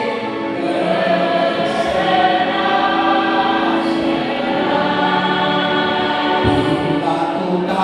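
Choir singing a song, with long held notes.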